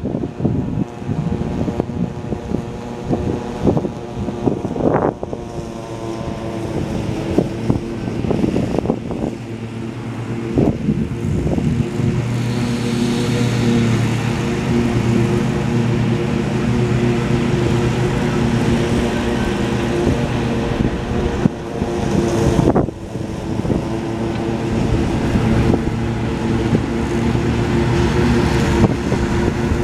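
Diesel engine of a GE C44-9W locomotive running with a steady drone that grows louder after about ten seconds and then holds, with wind buffeting the microphone.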